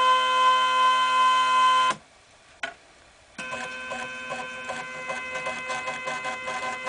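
Stepper motors of a homemade CNC pen plotter whining at a steady pitch as the axes move. The whine stops suddenly about two seconds in, with a single click in the pause, then starts again more quietly with irregular clicking, which the builder takes for the Y axis binding and skipping steps.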